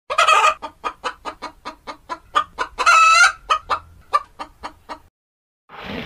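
Chickens clucking in a quick run of short clucks, about four or five a second, with one longer drawn-out call about three seconds in. The clucking stops about five seconds in.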